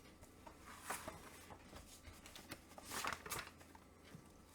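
Faint rustling and soft handling noises, with brief swishes about a second in and again around three seconds in: comic books being picked up and handled.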